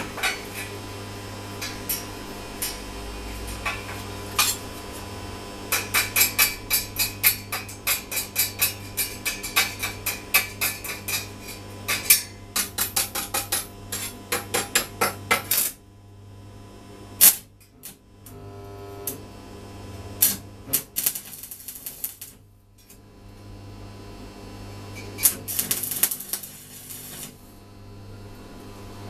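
Steel sheet pieces clinking and knocking against a steel workbench and wire frame as they are set in place: quick runs of light ringing metallic taps, several a second, then scattered louder knocks. A short tack weld hisses near the end.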